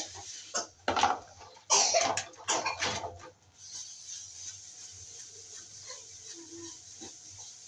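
Dishes being washed by hand: plastic plates knock and scrape against each other and a metal basin while being scrubbed with a sponge, a cluster of clatters in the first three seconds, then a quieter steady hiss.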